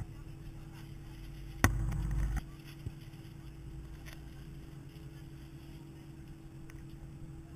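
Steady hum inside an airliner cabin on the ground. About a second and a half in, a sharp thump sets off a loud low rumble that cuts off after under a second.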